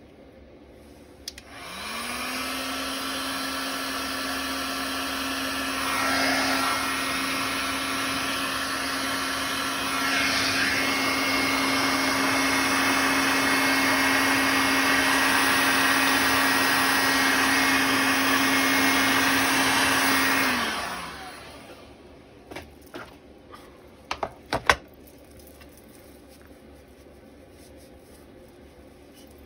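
Embossing heat gun running, a steady motor hum with a rush of blown air, melting white embossing powder on stamped paper. It starts about a second and a half in, gets louder twice, and is switched off about twenty seconds in, winding down. A few light clicks follow.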